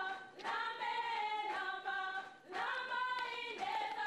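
Church choir singing a hymn unaccompanied, women's voices to the fore, in phrases of long held notes with short breaths between them.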